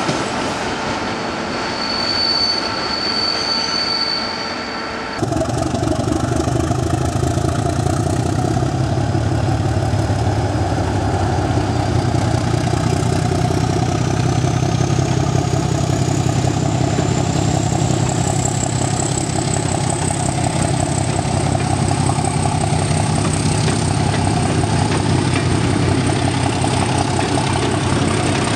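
ČKD six-axle 'Čmelák' diesel locomotive (T 669 / T 679.1 class) running under power as it pulls passenger coaches past: a steady low engine sound with a whine rising in pitch, over the rolling of the wheels. For the first five seconds, before an abrupt change, a train rolls past with a thin high squeal.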